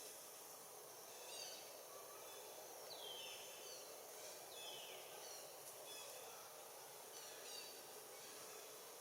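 Faint outdoor ambience with a steady background hiss and scattered bird chirps, including two falling whistled calls a little after the middle.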